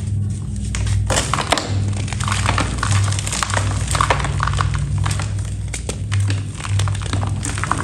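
Brittle, crumbly material being crushed and crumbled: a dense run of crisp, irregular cracks and crunches.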